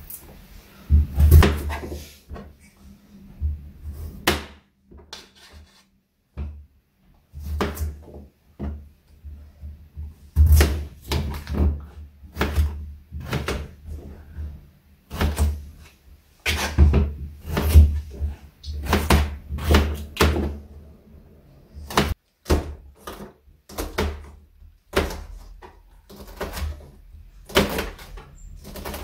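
Kitchen knife dicing peeled potatoes into small cubes on a thin plastic cutting board laid on a stainless steel counter: irregular clusters of sharp knocks, each with a dull thud from the counter, separated by short pauses. Near the end the knife is cutting green onions on the same board.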